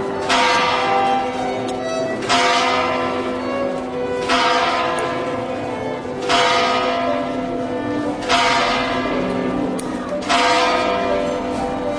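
Live violin holding long notes, with a bell struck about every two seconds, each stroke ringing out and fading before the next.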